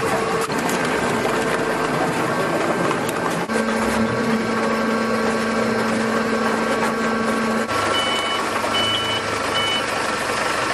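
Horizontal hydraulic plastic baler running: loud, steady machine noise with a hum, and a lower hum that sets in about three and a half seconds in and stops around eight seconds. Near the end, three short high beeps.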